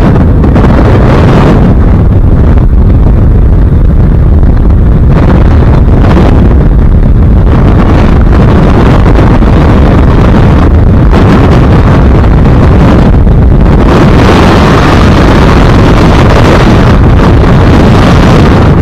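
Freefall wind blasting across a skydiver's camera microphone, a loud, constant rush that overloads the mic. The hiss swells and fades, growing stronger over the last few seconds.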